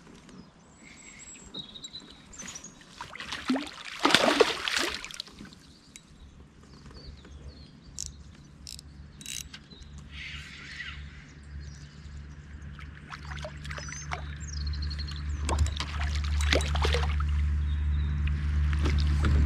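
Water splashing and trickling beside a kayak, loudest in a burst about four seconds in, with small birds chirping. A low steady hum comes in about a third of the way through and grows louder toward the end.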